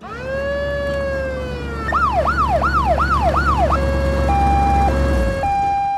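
Police siren, the police jeep's sound. It starts with one slow rising and falling wail, switches about two seconds in to a fast yelp of about five quick up-and-down sweeps, then changes to a high-low two-tone alternating roughly every half second. A low engine rumble runs underneath and stops shortly before the end.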